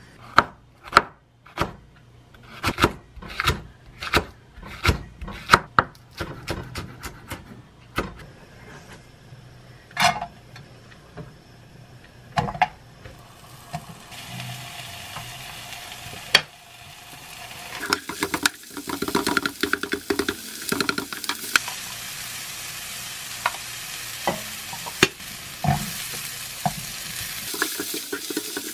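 A run of sharp, uneven knocks of a knife chopping on a cutting board. From about halfway, sliced onion and green onion sizzle in a frying pan, stirred and scraped with a wooden spatula.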